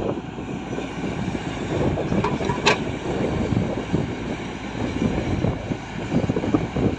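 Heavy diesel earthmoving machinery running with a rough, uneven rumble. There is a brief sharp knock a little under three seconds in.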